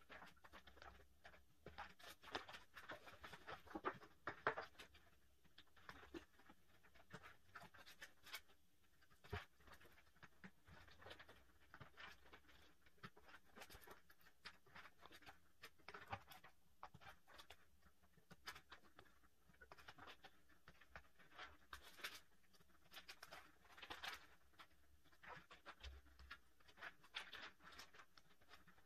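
Faint rustling and crinkling of plastic binder sleeves being handled, pages turned and pulled over the metal rings of a 3-ring binder, with irregular small clicks and taps throughout and a few sharper clicks.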